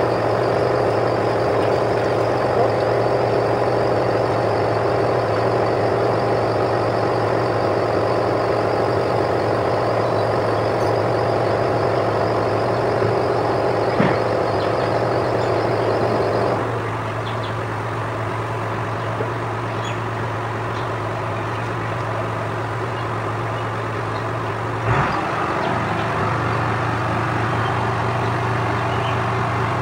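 Steady mechanical hum of a running engine or motor, with a low steady drone and higher steady tones over it. About halfway through, a high hiss drops out and it becomes quieter. Near the end a short knock comes, and the hum carries on slightly changed.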